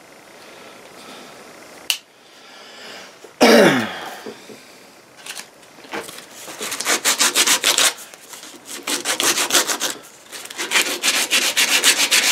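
Sandpaper rubbed by hand in quick back-and-forth strokes over the wooden wedge and handle end standing proud of the eye of a freshly hung axe head, starting about six seconds in. Before it, a small click near two seconds in and a sudden loud knock about three and a half seconds in.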